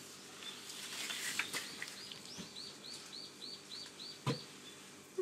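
A bird calling a quick run of about nine repeated chirps, about four a second, with one sharp knock near the end.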